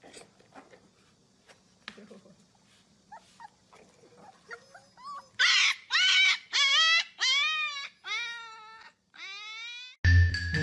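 Husky puppies whining, rising into a run of about five short, high-pitched howling calls, then one longer call near the end. A marimba tune starts abruptly right at the end.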